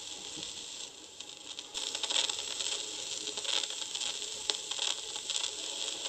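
Crackle, hiss and scattered clicks of vinyl surface noise from a 45 rpm record on a portable turntable, with the stylus in the run-in groove. The noise gets louder with a sudden step about two seconds in.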